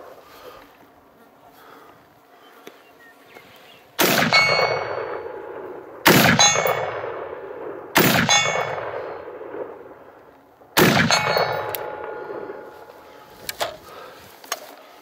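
Four rifle shots from a Black Rain Ordnance BRO Scout AR-15, two to three seconds apart, each with a long metallic clanging ring that fades out slowly. A couple of light knocks near the end.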